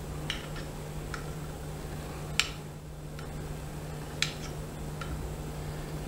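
Scattered sharp clicks and taps against a glass baking dish as set halwa is cut and pried loose, the loudest about two and a half seconds in, over a steady low hum.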